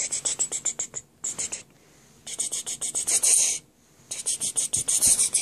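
Rapid scratching on cloth bedding, about ten strokes a second, in four short bouts with brief pauses between them.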